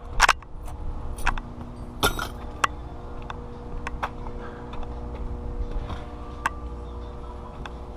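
Irregular metallic clicks and clinks of hand tools being handled, over a steady low hum.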